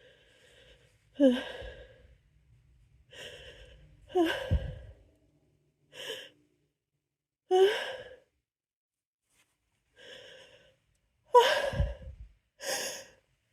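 A person's sighing, gasping breaths, some with a brief voiced 'ah', coming one at a time every second or two with short silences between. This is the halting build-up of an oncoming sneeze from a tickling nose.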